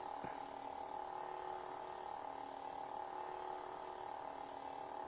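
Metal LED lightsaber's idle hum sound effect from its built-in speaker: a steady electronic hum of several held tones, with a faint click just after the start.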